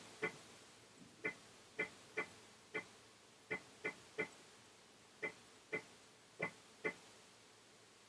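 Apple IIgs disk drive clicking at uneven intervals, about a dozen sharp clicks each with a short ringing tone, as its head steps while loading System 5.0.2 at boot.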